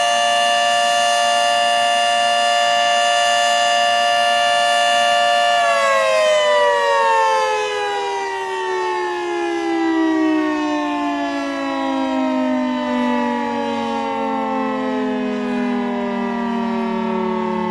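Outdoor tornado warning siren being tested, loud and holding a steady tone for about six seconds. It then winds down, its pitch falling slowly and evenly.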